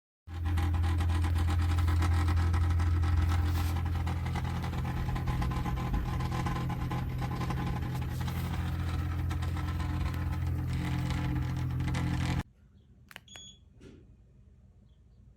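Mengnessly 28-inch plug-in ceiling fan running, with a steady motor hum and rushing air. The sound cuts off abruptly about twelve seconds in, and two short high beeps follow.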